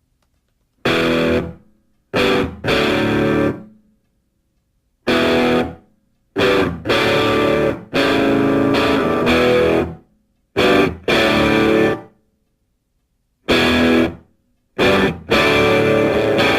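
Electric guitar music, played in short phrases that break off into abrupt complete silences.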